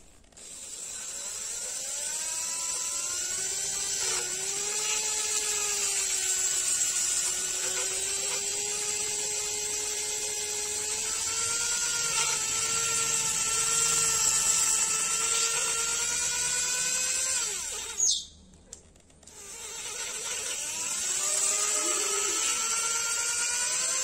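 Small power-tool motor spinning a wooden cigarette-holder pipe while it is hand-sanded with sandpaper: a steady whine whose pitch sags and wavers as the sandpaper loads it. About three-quarters of the way through it cuts off with a click for about a second, then spins back up with a rising whine.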